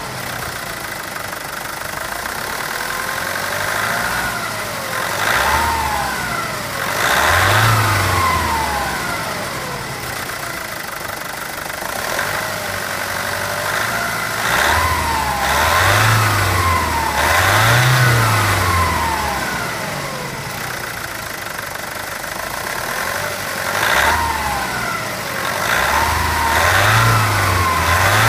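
Nissan D22's YD25 2.5-litre intercooled turbo-diesel four-cylinder idling and being revved in repeated short blips, the pitch rising and falling each time, with idle in between.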